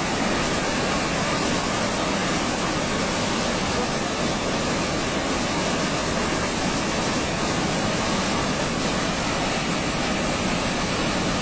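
Steady rushing noise of water and mud pouring out as a mine tailings dam embankment collapses.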